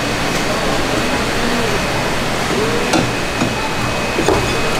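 Fish-shop background: a steady rushing noise under faint distant voices, with a few light knocks, one about three seconds in and more near the end.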